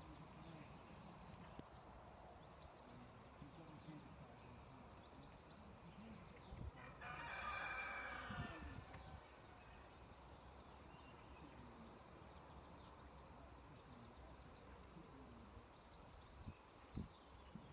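A rooster crowing once, faintly, lasting about a second and a half, about seven seconds in; otherwise near silence.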